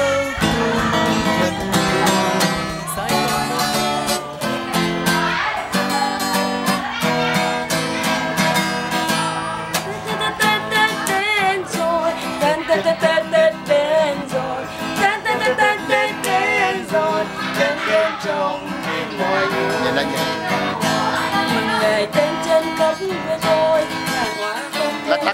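Music: a strummed acoustic guitar with a singing voice.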